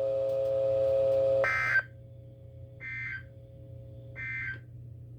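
Emergency Alert System end-of-message signal: three short bursts of digital data warble, about a second and a half apart. Under them runs a steady buzzing tone, which drops sharply in level with the first burst and dips during each one.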